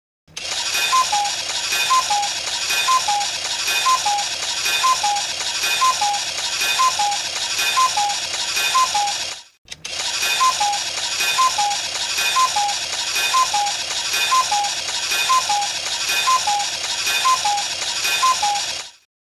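Cuckoo clock going off: its two-note falling "cuck-oo" call repeats about once a second over a continuous clatter of the clock's mechanism. The calls run in two series of about nine, with a brief break near the middle.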